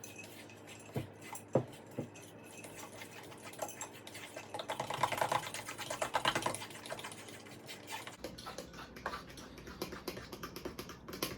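A fork beating waffle batter in a bowl: fast, dense clicking and tapping against the bowl, busiest around the middle, with a couple of sharper knocks about a second in.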